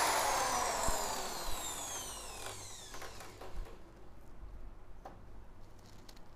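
Electric drill with a wire cup brush coasting down after being switched off: its whine falls steadily in pitch and fades over about three and a half seconds. A few light clicks and knocks follow.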